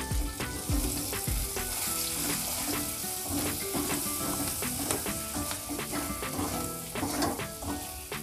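Onion, capsicum and green chillies with chilli powder sizzling in a little oil in a kadai over a low gas flame. A metal spatula stirs them, scraping and tapping against the pan many times.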